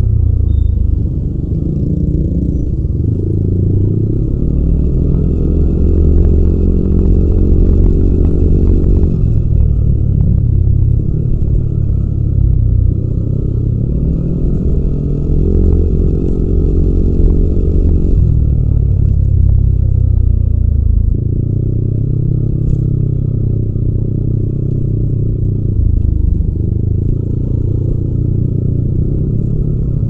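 Yamaha Aerox 155 scooter's single-cylinder 155 cc four-stroke engine running at low road speed. Its note swells twice, about six and fifteen seconds in, as the throttle is opened, then eases off again.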